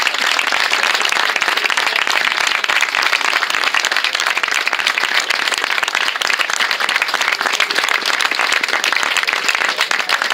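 A small crowd applauding, many hands clapping steadily without a break.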